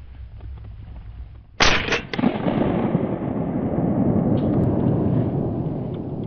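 Shotgun shots fired at a flying woodcock: several sharp blasts in quick succession about one and a half seconds in, followed by a loud low rumble that slowly fades.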